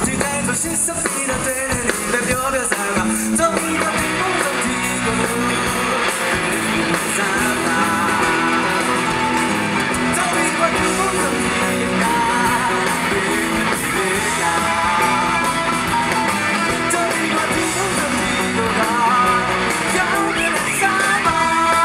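Live rock band playing: electric guitars and bass over a drum kit, with singing, heard through the hall's PA.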